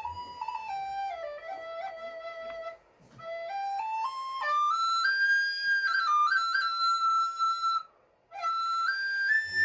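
Recorder playing a slow single-line melody in short phrases with brief breaths between them: a falling phrase, then one climbing step by step to higher held notes.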